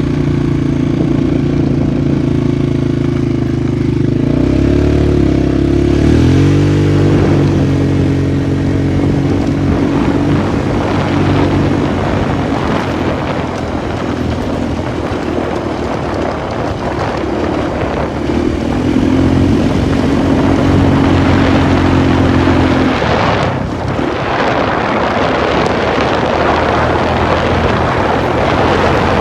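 Polaris 450 ATV's single-cylinder engine running under way, its pitch rising and falling with the throttle, with a rough rushing noise over much of the ride.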